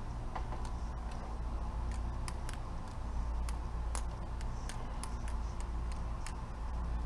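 Butterfly knife (balisong) being flipped by hand: a run of sharp, irregular clicks, about two a second, as the handles swing open and shut, over a steady low rumble.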